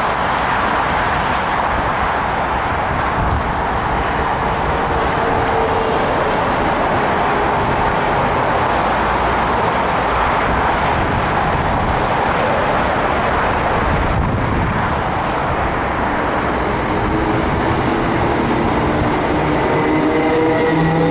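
Class 319 electric multiple unit moving through the station platform with a steady rumble of running noise. Near the end, a whine at several pitches rises as the train gathers speed.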